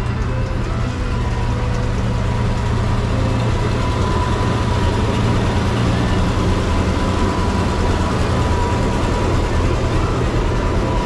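1968 Oliver 1750 tractor's 4.6-litre six-cylinder gasoline engine running steadily as the tractor drives out past the camera, a continuous low engine rumble with a thin steady high-pitched tone over it.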